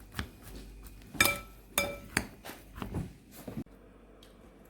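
Kitchenware clinking: a utensil knocking against a bowl or dish about half a dozen times, the louder strikes ringing briefly, stopping about three and a half seconds in.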